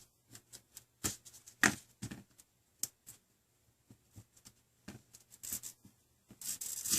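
Scattered light clicks and short scrapes as a small leftover piece of the old touch-screen glass is worked loose from the tablet's frame, with a rougher scraping sound near the end.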